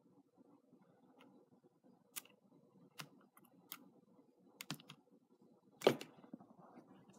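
Scattered clicks and taps from someone working a computer, about seven in all over a faint hum. The loudest comes about six seconds in, as the screen moves on to the next entry.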